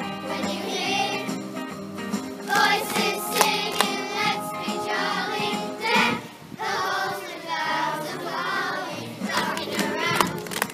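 A group of young children singing a Christmas song together in unison over a musical accompaniment.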